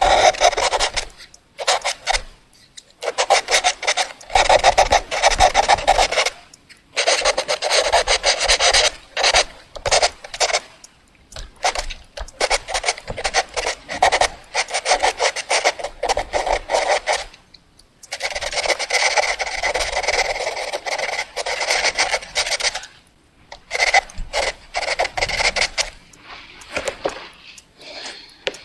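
Fast drawing on paper: rapid scratchy back-and-forth strokes in runs of a few seconds, broken by short pauses.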